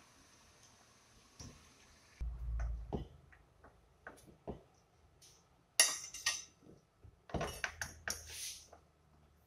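Chinese cleaver knocking and cutting on a plastic cutting board as asparagus stalks are lined up and chopped: scattered taps and knocks, with two louder clusters of chopping, one around the middle and a longer one near the end. A faint steady hiss from the pan of hot water on the gas burner stops about two seconds in.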